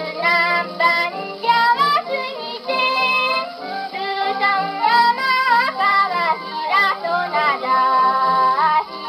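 A young female voice singing a Japanese children's song (dōyō) with instrumental accompaniment, played from a 78 rpm shellac record on an HMV Model 102 portable wind-up gramophone. The sound is thin and narrow, with no deep bass and no bright treble.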